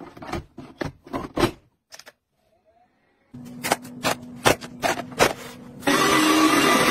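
Hard plastic kitchenware clicking and knocking as it is handled and fitted together, in two bunches of sharp clicks with a short quiet gap between. Near the end a cordless wet floor cleaner starts running, a loud steady motor whine.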